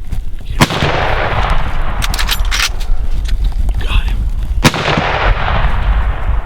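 Two rifle shots about four seconds apart, each followed by a long rolling echo, with a few sharp clicks between them.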